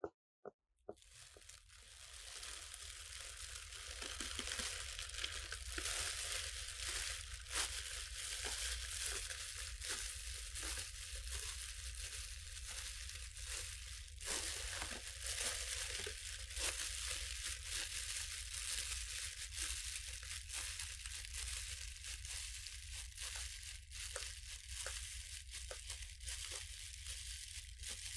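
Clear plastic packaging bags being crinkled and rustled without a break, full of sharp crackles, starting about a second in.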